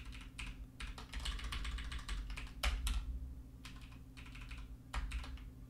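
Typing on a computer keyboard: irregular key clicks, thinning out for a moment past the middle, over a faint steady low hum.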